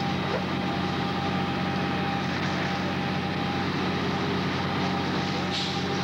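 Steady drone of fire truck engines running, mixed with the broad hiss of hose streams spraying water.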